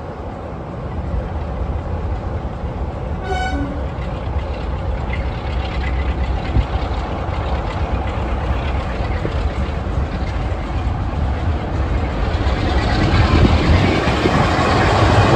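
BR Class 46 'Peak' diesel-electric locomotive with its Sulzer twin-bank engine working under power, a heavy low rumble that grows steadily louder as it approaches. A brief toot sounds about three seconds in.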